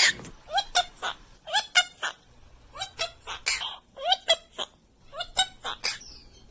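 A parrot calling in short notes that each rise quickly in pitch, coming in clusters of two or three about once a second.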